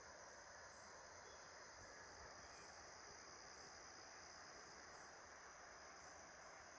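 Near silence: faint outdoor ambience with distant chipmunks chirping, a thin high-pitched chirp repeating about once a second.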